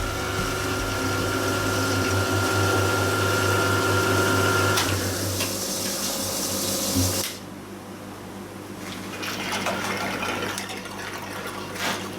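Milling machine cutting metal with a carbide end mill under flowing coolant: a steady machine hum with a loud wash of hiss. About seven seconds in the hiss cuts off suddenly, and the machine runs on more quietly.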